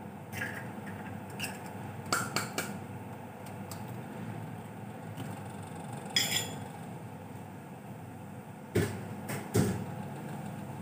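Fork and eggshell clicking and tapping against a ceramic bowl as eggs are readied for an omelette, with a ringing clink about six seconds in and two heavier knocks near the end. Under it runs a steady low hiss from the lit gas burner.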